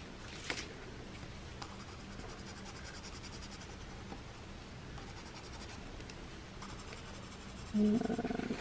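Faint, steady scratching of a green coloring tool on paper as short grass strokes are laid down. There is a soft click about half a second in and a brief murmur of voice near the end.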